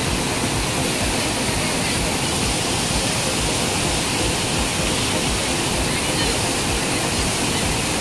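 Swollen river rushing over rocky rapids: a loud, steady wash of water noise with a low rumble beneath it.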